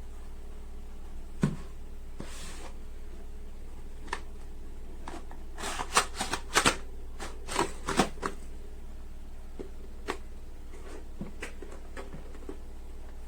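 Handling noises: scattered clicks and light knocks, with a quick cluster about six to eight seconds in, over a low steady hum.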